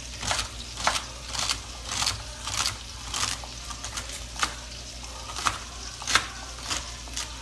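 Kitchen knife cutting through celery stalks on a cutting board, a crisp chop roughly twice a second with a short pause midway.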